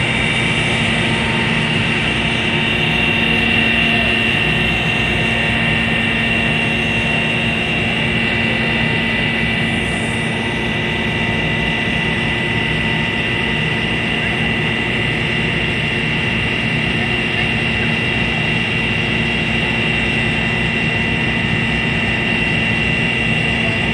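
Telescopic crane's engine and hydraulics running steadily as the boom extends, a constant drone with a steady high whine over it.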